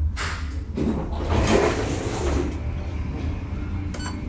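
Elevator car at work: a steady low hum with a swelling then fading rush of mechanical noise over the first two or three seconds, like the car's sliding door gear running, then a few sharp clicks near the end as a button on the car's call panel is pressed.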